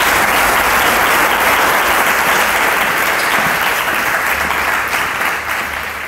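Audience applauding, a dense, steady clapping that dies away near the end.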